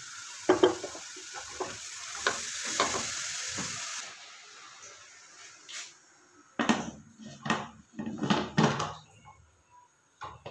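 A silicone spatula stirring and scraping grated carrots in a pressure cooker pot, with a hissing rustle and a few knocks. Then several loud metal clunks as the pressure cooker lid is set on and closed.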